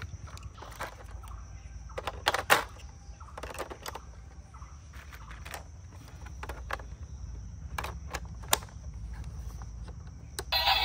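Scattered plastic clicks and knocks as AA batteries are pressed into a toy bus's battery compartment and the cover is handled, over a low steady hum. Right at the end the battery-powered toy bus starts playing electronic music.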